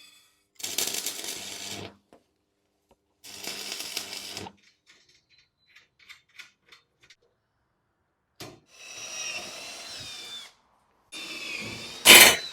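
Electric drill running in short bursts of one to two seconds, separated by abrupt silences, with a few small clicks in the middle. In the later bursts its pitch rises and falls with speed, and the loudest, sharpest burst comes near the end.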